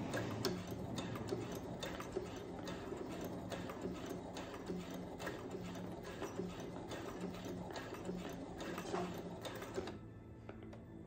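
Brother CS7000X computerized sewing machine stitching bias tape onto fabric: a steady motor hum with scattered clicks from the needle mechanism. It stops about ten seconds in.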